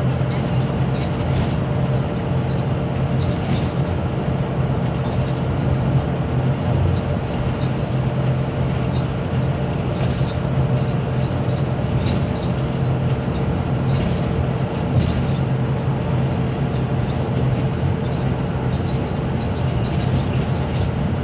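Steady cabin noise of a vehicle cruising at highway speed: a low engine drone and road noise, with a faint steady whine above it and a few light rattles.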